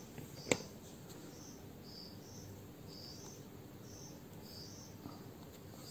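Faint high-pitched chirping, short chirps about twice a second alternating between two slightly different pitches, over a quiet background. A single sharp click sounds about half a second in.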